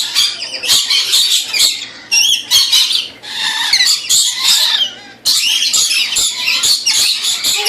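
A flock of lorikeets screeching and chattering, harsh rapid calls one after another, with a couple of brief lulls.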